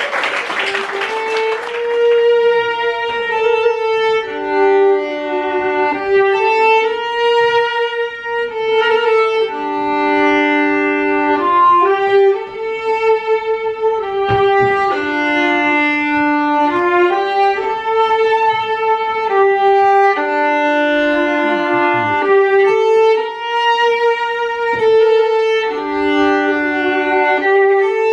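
Live instrumental music: a slow line of held, sustained notes, often two sounding together, changing every second or two. A brief hiss of noise sounds under the first couple of seconds.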